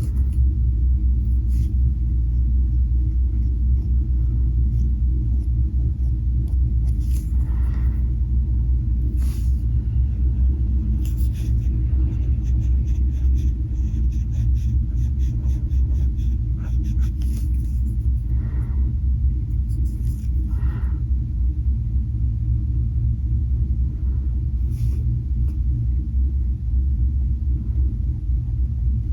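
A steady low rumble runs throughout and is the loudest sound. Over it come faint scratchy strokes of an alcohol marker tip on paper, now and then, with a run of quick back-and-forth strokes around the middle.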